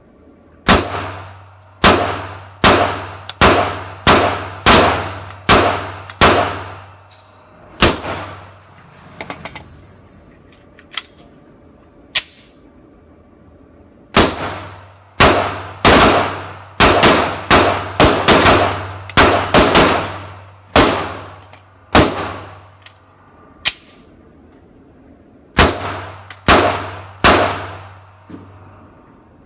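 Glock 43 9mm pistol firing strings of single shots, roughly one a second, each shot ringing out briefly; a pause of several seconds mid-way with a few small clicks, then a longer string and a final three quick shots.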